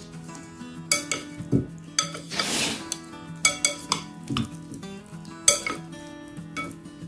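Chopsticks and a white ceramic bowl clinking and knocking about ten times as the bowl is handled, with a short scraping rustle a couple of seconds in, over soft background music.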